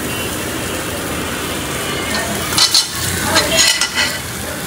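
Pieces of boiled, drained meat going into a hot wok and being turned with a metal spatula: a sizzle, with a few louder clattering bursts between about two and a half and four seconds in.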